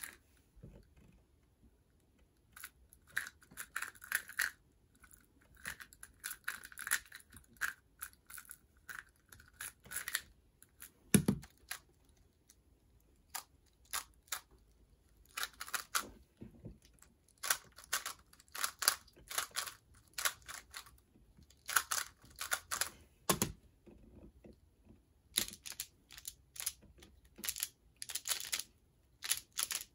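Plastic speedcubing puzzles being turned fast by hand: bursts of rapid clicking and rattling turns with short pauses between them. Two dull thumps stand out, about eleven seconds in and again about twenty-three seconds in.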